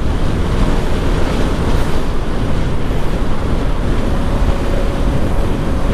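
Wind rushing over a motorcycle helmet with the visor closed, picked up by a helmet-mounted mic while riding, with the motorcycle's engine running underneath. A faint steady whine joins about four seconds in.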